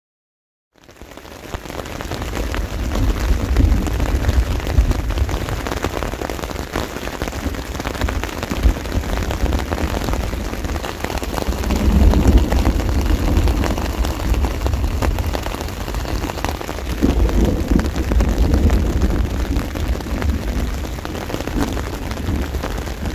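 Heavy rain falling hard, with a deep rumble underneath that swells and eases several times. The sound fades in about a second in.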